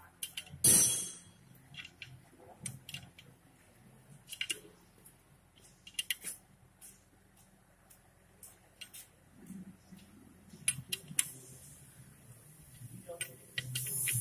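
Scattered metal clicks and clinks of a combination wrench on the bolts of a tractor clutch pressure plate, with a short metallic clatter about a second in.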